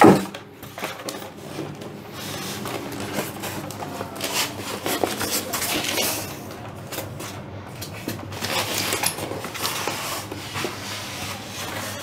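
Polystyrene foam packing blocks being worked off a boxed computer monitor: foam rubbing and scraping, with crackling of the plastic bag around the screen and a bump at the start.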